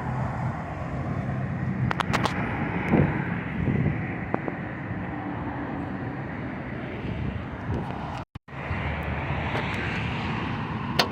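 Car running, heard from inside the cabin: a steady engine hum under road and wind noise. It cuts out briefly about eight seconds in.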